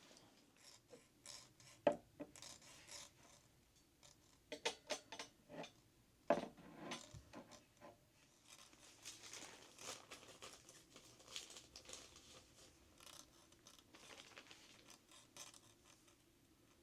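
Faint handling sounds of tassels being hooked onto a candle carousel: scattered small clicks and taps, the sharpest about two seconds and six seconds in, then light rustling and scraping.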